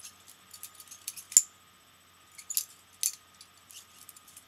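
Butterfly knife being flipped by hand: its metal handles click and clack against each other and the blade in quick, irregular runs, with the loudest clack about one and a half seconds in.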